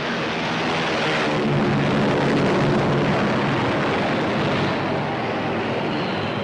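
Propeller-driven piston aircraft engines running in flight, a steady drone that swells about a second in.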